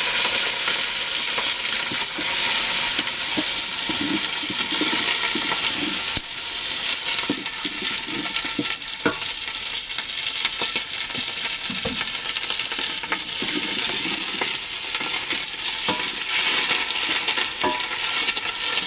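Browned onions sizzling steadily in a saucepan with oil and a little water, with stirring and scattered light clicks.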